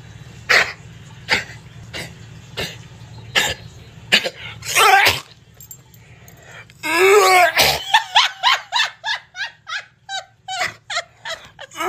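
English springer spaniel making short cough-like huffs, about one every 0.7 s, then a louder, longer burst about five seconds in. In the second half a person laughs in quick, repeated bursts.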